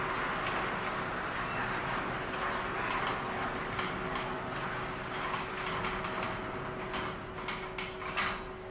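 Steady mechanical hum and hiss of an automatic fabric spreading machine running on the factory floor, with a few sharp clicks and knocks near the end.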